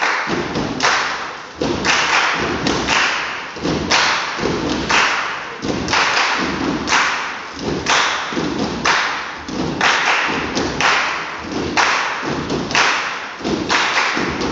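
A group performing body percussion in unison: a steady repeating rhythm of sharp hand claps alternating with duller, lower body slaps.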